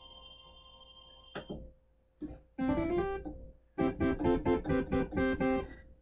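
Arturia MiniFreak synthesizer playing a pluck-like patch: a held tone fades out, a few short notes follow, and from about four seconds in a quick run of about nine short plucked notes steps through different pitches.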